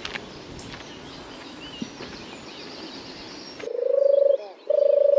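Outdoor background noise with a few faint clicks, then a sudden cut about three and a half seconds in to loud, repeated pulsing animal calls of about half a second each, at a steady pitch, with birds chirping faintly behind.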